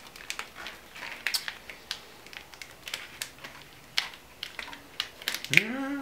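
Irregular clicks and crackles of plastic split-loom conduit and wiring being handled and pushed into place along an engine wiring harness.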